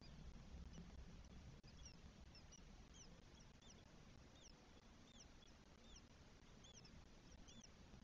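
Faint, thin, high peeps repeating about twice a second, each a quick arched note: newly hatched spotless starling nestlings begging in the nest cavity. A low steady hum lies underneath.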